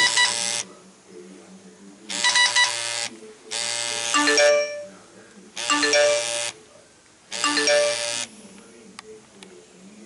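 iPhone 3GS (model A1303) loudspeaker playing its built-in alert tones one after another as they are picked from the list: five short electronic chimes of about a second each, with pauses between. A few faint clicks near the end.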